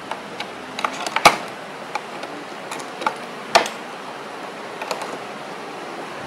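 Scattered clicks and knocks from a small tripod being handled. The two sharpest come about a second in and about three and a half seconds in.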